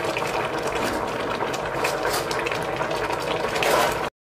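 Pot of catfish pepper soup boiling, a steady bubbling with many small pops, which cuts off suddenly near the end.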